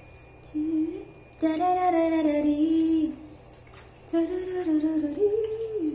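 A woman humming a tune in three phrases of held, gliding notes, the middle one the longest.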